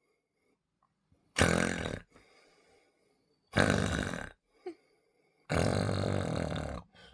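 Three loud snores about two seconds apart, the last one the longest.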